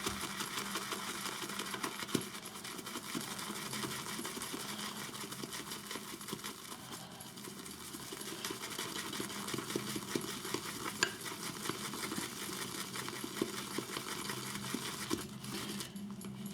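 Horsehair shaving brush whisking shave soap and water into lather in a bowl, with rapid, continuous swishing strokes of the bristles against the bowl.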